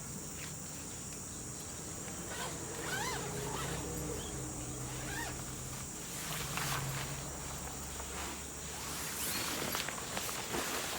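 Insects chirping in a steady high-pitched drone over a low hum, with a few short chirps and scattered light clicks.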